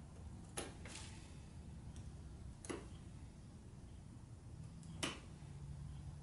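Bonsai knob cutter biting into the wood of an American hornbeam's sawn-off branch stub: three sharp snaps about two seconds apart, the first followed by a fainter one, as the stub is nibbled down bite by bite.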